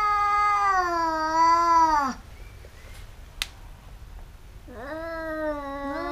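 Two domestic cats in a tense standoff, yowling: a long, wavering threat call that dies away about two seconds in, then, after a short pause broken by a single sharp click, another drawn-out yowl begins near the end.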